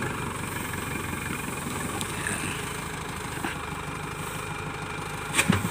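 Farm tractor's diesel engine idling steadily. Near the end comes a short thump, a sack of palay dropped onto the metal trailer.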